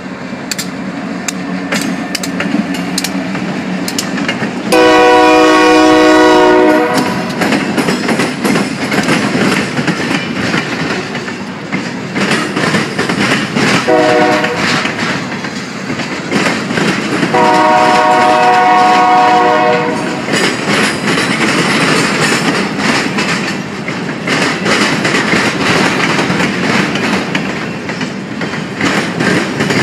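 Diesel freight train passing at close range, its multi-note air horn sounding for the grade crossing: a long blast about five seconds in, a short one near the middle and another long one at about eighteen seconds. Between and after the blasts the freight cars rumble past, wheels clicking over the rail joints.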